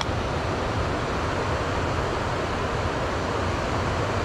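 Steady rushing of water pouring through a dam's spillway gates, a constant, even roar with no breaks.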